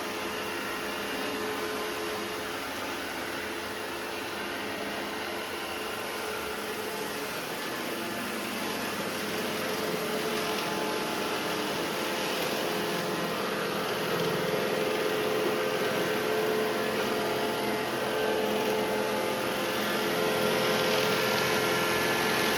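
Robot vacuum cleaner running: a steady suction-motor and brush noise with a few steady whine tones, growing louder through the second half.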